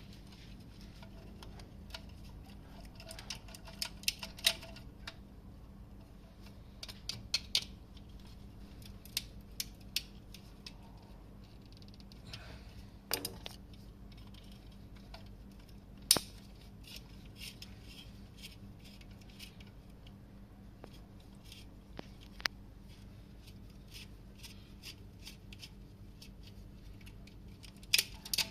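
Scattered sharp clicks and snips of small hand tools and plastic socket parts being handled, some in quick clusters and a few louder single snaps, over a faint steady hum.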